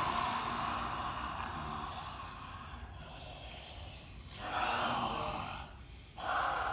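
Men voicing monster roars as breathy, throaty hisses: one long hiss fading away over the first few seconds, then two shorter ones.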